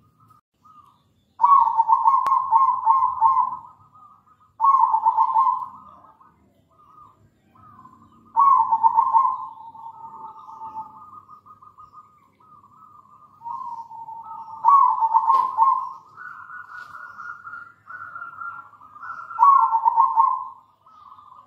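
Zebra dove (perkutut) cooing: five loud rolling phrases of rapid notes, with fainter coos between them.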